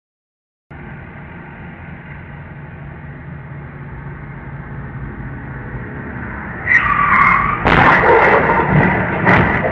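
Car tyres squeal about seven seconds in, then a car collision: a loud crash about a second later and another bang near the end, over a steady low rumble.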